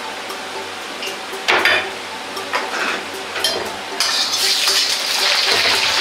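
A few sharp metal clinks of a ladle and plate, then about four seconds in a sudden loud sizzle as pieces of Chinese cabbage stem drop into hot oil in a wok and start deep-frying.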